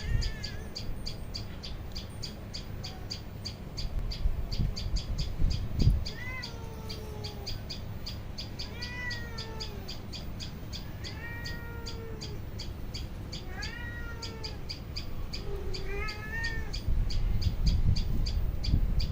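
A cat meowing five times, about two and a half seconds apart, each meow a drawn-out call that rises and then falls. Under the meows runs a steady, rapid, high chirping of about four chirps a second, over a low rumble.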